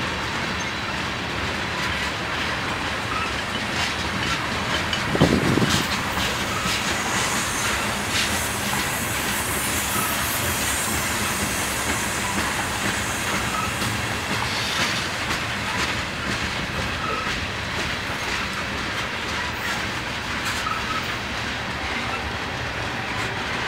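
Freight train tank cars rolling past: a steady rumble of steel wheels with clickety-clack over the rail joints. A single loud knock comes about five seconds in, and a high hiss of wheel noise swells up through the middle.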